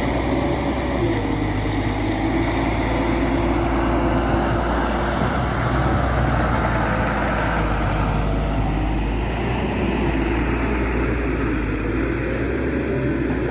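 Tata Hitachi EX200 Super excavator's diesel engine running steadily, working harder for a few seconds in the middle.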